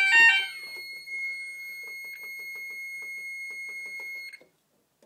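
Fire alarm sounding its loud two-tone alternating alarm, set off because the zone was not disabled while the callpoint's end-of-line module was being fitted. It cuts off about half a second in, leaving the Gent Xenex control panel's internal buzzer on a steady high tone with faint clicks of its buttons being pressed. The buzzer stops about four seconds in.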